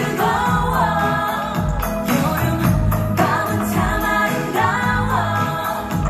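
Live pop song over a concert PA: a woman sings a melody over a backing track, with steady bass and a regular percussive beat.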